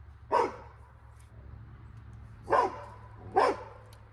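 A dog barking: three single barks, about a second in, then two close together near the end.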